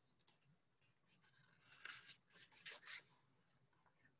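Faint rustling and scraping of paper as a page of a large hardcover picture book is turned, a few soft scrapes in the middle; otherwise near silence.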